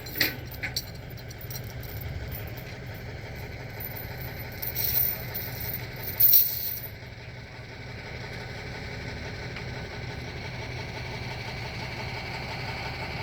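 Big truck's engine idling steadily with a low hum. A few sharp clicks come right at the start, and two louder noisy bursts come about five and six seconds in.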